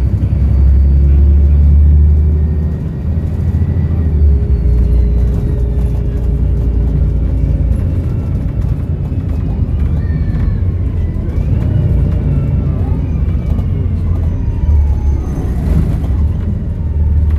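Volvo B7RLE bus's six-cylinder diesel engine running with a heavy low rumble, loudest for the first couple of seconds. Through the second half a turbo whistle glides up and down in pitch above it.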